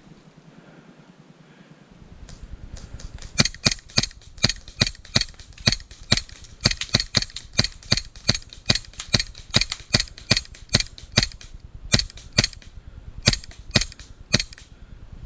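Airsoft gun firing single shots, sharp cracks at about two a second, starting a few seconds in and stopping shortly before the end.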